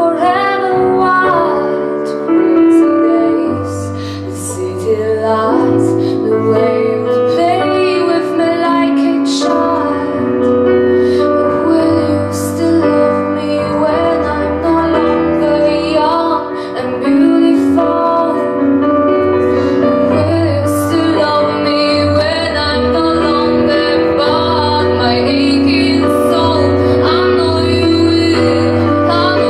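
A teenage girl singing a song with piano accompaniment, in long held notes over a steady bass.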